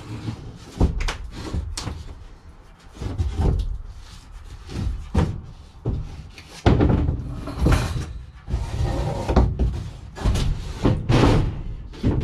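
A large OSB board being pushed into the back of a plywood-lined panel van and laid down onto timber floor joists: a string of wooden thuds and knocks with scraping as the board slides and bumps against the frame and van body.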